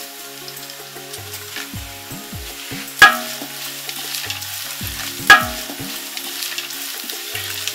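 Oil sizzling as sliced onions, chilies and whole spices fry in a large metal pot, stirred and scraped with a wooden spatula. Twice, about two seconds apart, the spatula knocks sharply against the pot, which rings briefly.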